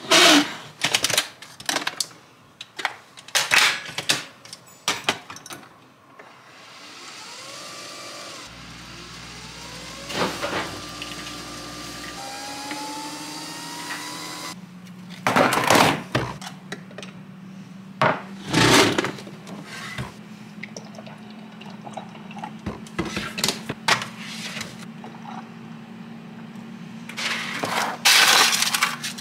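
Single-serve pod coffee machine being loaded with clicks and knocks, then brewing with a steady hum and a few rising whines. Later come loud clunks of containers being handled and set down on the counter.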